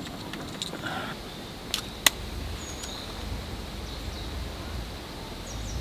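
A few small handling clicks, then a match struck about two seconds in: a sharp scratch with a brief flare, followed by low rustling.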